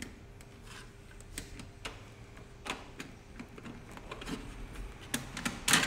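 Punched paper sheets being worked down onto the plastic pins of a binding strip: faint paper rustling with light, scattered clicks, louder near the end.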